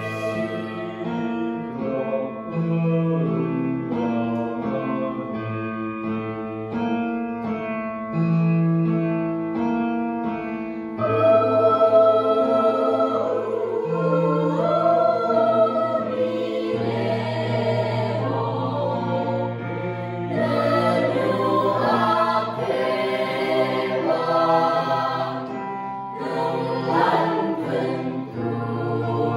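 Mixed-voice school choir singing in parts, with low notes held beneath the moving upper voices.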